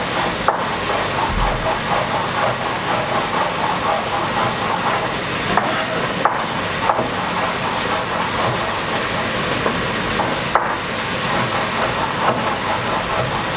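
A steady hiss throughout, with a few scattered knife taps on a wooden chopping board as an onion is sliced.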